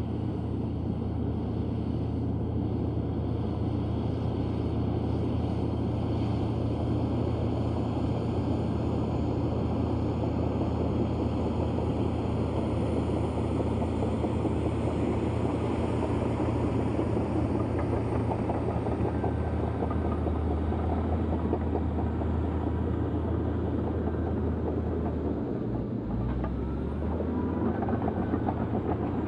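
Komatsu D155A bulldozer's diesel engine running steadily with a deep, even drone; the engine note dips and shifts briefly near the end.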